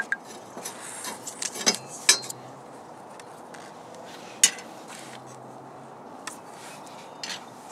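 Light metallic clinks and knocks of parts and tools being handled on a bare sheet-metal panel: several in the first two seconds, a single sharper one about halfway, then a couple of faint taps.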